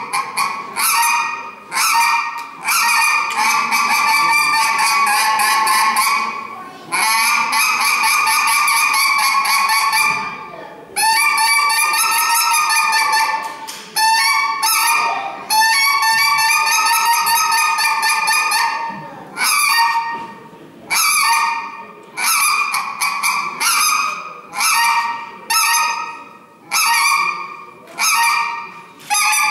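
Goose-style honking from a goose call: long drawn honks lasting several seconds, then a run of short, evenly spaced honks that quicken slightly near the end.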